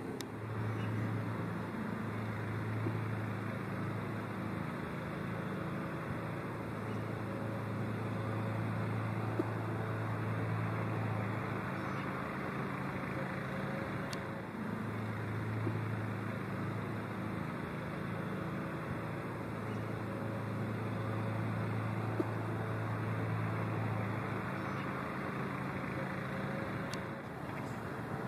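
Steady low motor hum with a broad even hiss, like distant road traffic; the hum fades and returns a few times.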